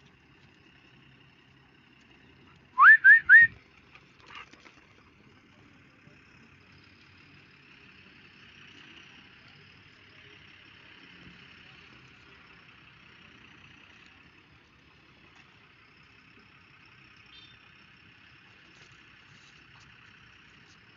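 Three short sharp whistles in quick succession about three seconds in, each sliding up and holding briefly. After them only a faint steady high hiss continues.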